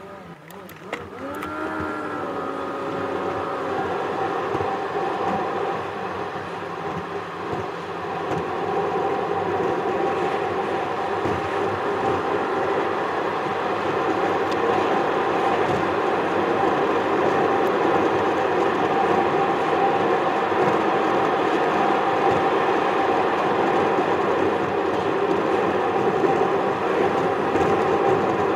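Car engine and tyre road noise heard inside the cabin as the car pulls away and speeds up, the engine note rising and levelling off about two seconds in, then a steady hum of cruising that grows louder over the first ten seconds. A few clicks at the very start.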